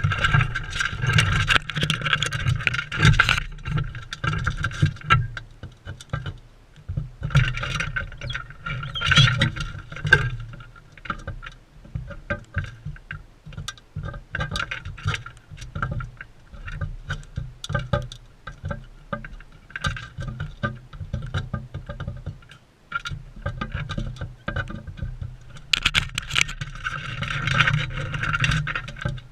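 Parrots pecking and cracking seed at a feeder close to the microphone: irregular clicks and taps, with louder stretches at the start, about a third of the way in, and near the end.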